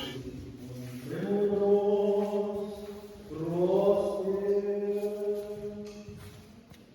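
Orthodox liturgical chanting, sung as long held notes in two phrases, the second opening with a rising glide.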